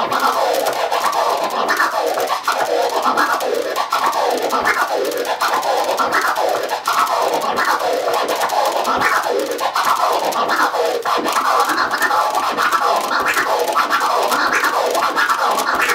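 Turntable scratching: a vinyl record pushed forward and back under the stylus in rising and falling sweeps, each stroke cut into short pieces by clicks of the mixer's crossfader. These are four-click orbits, four clicks on the forward stroke and four on the back, run without a break through several of their rhythm variations.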